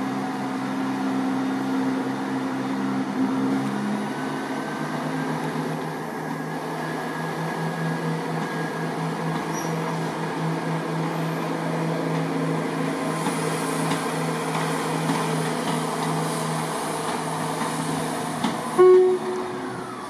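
Diesel multiple unit engines running with a steady, pulsing note that shifts about four seconds in, with a faint whine rising slowly after that. A short loud tone sounds once near the end.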